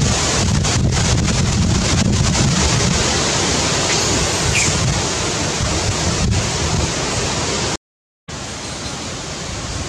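Wind buffeting the microphone: a steady rushing hiss over a heavy, uneven low rumble. The sound cuts out completely for about half a second near the end.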